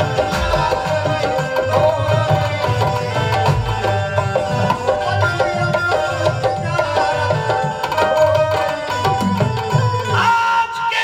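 Tabla playing a steady rhythm under a melody of held notes: the instrumental interlude between sung couplets of a ghazal.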